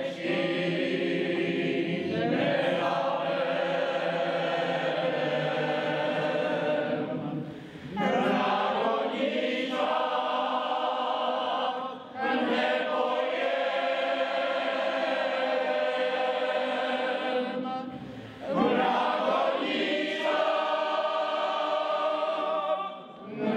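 Large mixed choir of women and men singing a folk song a cappella, in long sustained phrases separated by short pauses for breath every four to six seconds.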